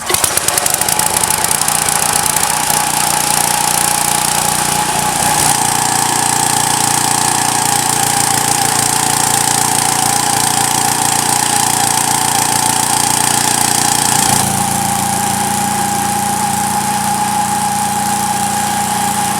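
Small gasoline engine of a Lumbersmith portable bandsaw mill running loud and steady at speed while the band blade saws through a log, with a steady high whine over it. The engine note shifts about five seconds in and again near fifteen seconds.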